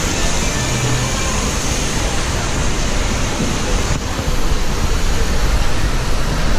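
Steady rush of running water, a loud even noise that grows louder about four seconds in.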